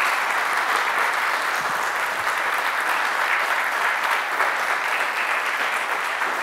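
An audience applauding: steady clapping from many hands, with no break.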